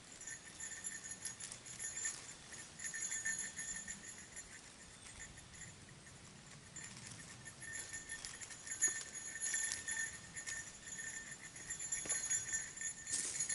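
Small bear bell on a hung food bag jingling faintly and on and off as the bag is lowered and handled. The bell serves as an alarm on the bear-bag line, so that anything disturbing the food is heard.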